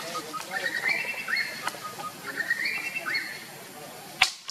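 Repeated high animal calls: short notes stepping upward to a held high note, the phrase repeating about once a second. A sharp click near the end.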